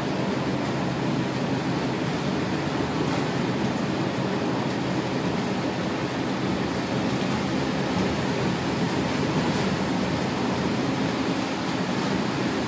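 Steady cabin noise inside a Scania K280UB city bus: its 9.3-litre five-cylinder Scania DC9 diesel running under a continuous rush of road and tyre noise.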